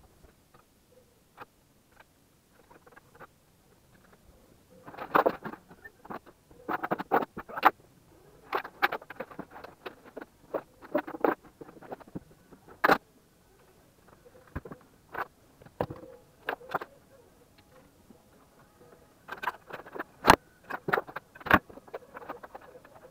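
Cables, plugs and small equipment rattling and clattering as they are pulled loose and gathered up, in quick clusters of clicks and rustles with quieter gaps between.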